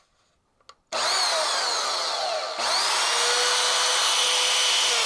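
WEN portable band saw motor switched on about a second in and running free with no material in the blade, its whine rising as it spins up. It dips briefly a little past halfway and speeds straight back up to a steady run.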